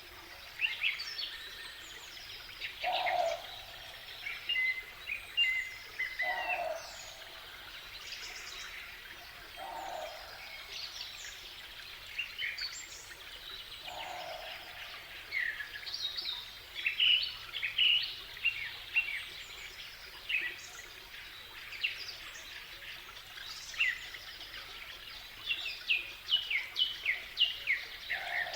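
Nature ambience recording of several birds chirping and singing, with short trills scattered throughout over a soft steady background hiss, and a lower call that repeats every three to four seconds.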